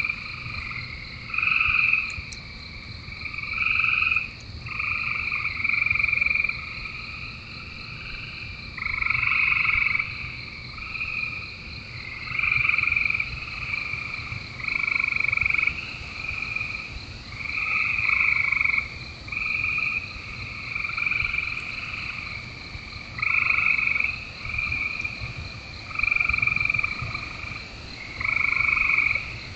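A chorus of frogs calling, with overlapping trills about half a second to a second long following one after another without pause.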